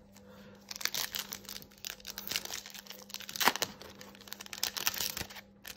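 A foil trading-card booster pack being torn open and crinkled in the hands: a run of irregular crackles and rustles, the sharpest about halfway through.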